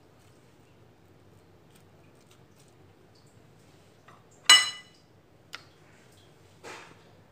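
A glass baking dish clinks once sharply about halfway through and rings briefly as chicken pieces are set into it by hand. A small click follows, then a duller knock near the end.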